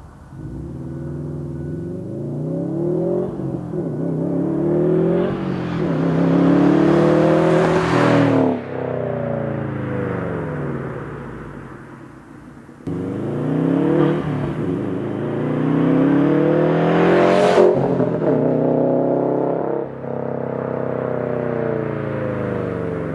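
Subaru WRX STI's turbocharged flat-four running through an AWE Touring cat-back exhaust, pulling hard twice: the engine note climbs through the revs in steps, then falls away sharply after each pull.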